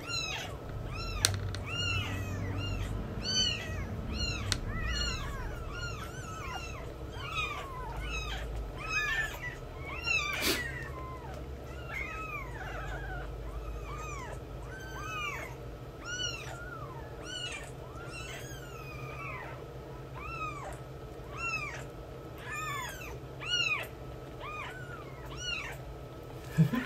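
Newborn kittens mewing over and over: short, high cries that rise and fall, about one or two a second, with a sharp click about ten seconds in.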